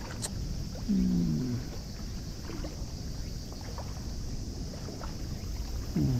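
A steady low rumble of wind and rippling water, with a sharp click just after the start. A man gives two short falling hums or grunts, one about a second in and one at the end.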